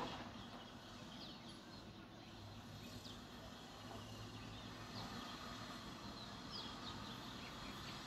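Sparrows chirping faintly: scattered short, high, quickly falling chirps, over a low steady hum.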